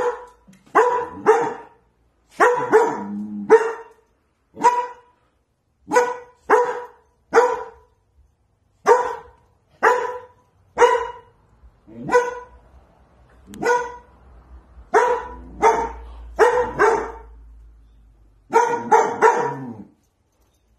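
Long-coated German Shepherd puppy barking in alarm, over and over: sharp single barks and quick runs of two or three, with short pauses between.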